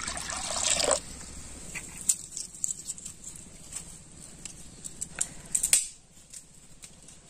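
Water pouring from a steel tumbler into a metal wok, stopping abruptly about a second in. Then small, scattered crackles and clicks of dry papery skins being peeled off cloves by hand, with one louder rustling burst about two thirds through.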